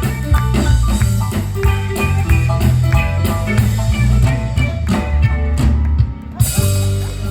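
Live band playing the instrumental close of a bolero: guitar over bass and drums, no singing, settling into a held final chord near the end.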